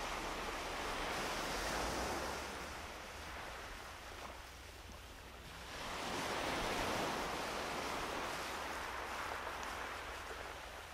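Small waves washing onto a sandy beach: a steady hiss of surf that swells, fades about halfway through, and swells again.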